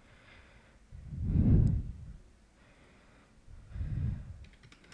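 A person breathing out heavily into a close microphone twice, the first breath about a second in and the stronger of the two, the second near the end. A few quick clicks follow just before the end.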